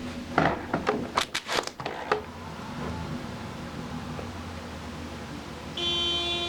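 A car horn sounds one steady, unbroken honk starting near the end, from a driver held up by a delivery semi blocking the drive-through lane. It comes over a low steady engine hum, after a quick run of sharp clicks and knocks in the first two seconds.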